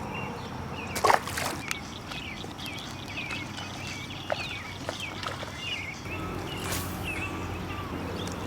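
Birds chirping over and over in short, quick phrases, with a sharp knock about a second in and a low steady hum setting in about six seconds in.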